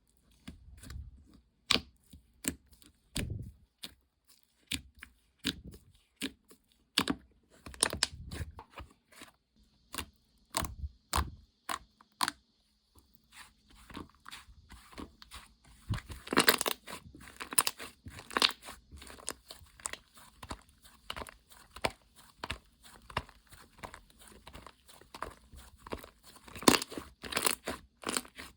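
Thick gingerbread-dough slime being pressed, poked and pulled by hand. It gives separate sticky pops and clicks for about the first twelve seconds, then a denser run of crackling, tearing sounds.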